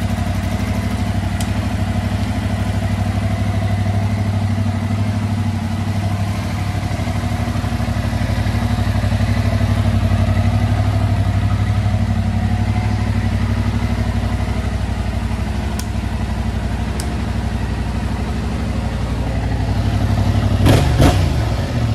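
Yamaha MT-07's 689 cc parallel-twin engine idling steadily on its stock exhaust, with a brief louder burst near the end.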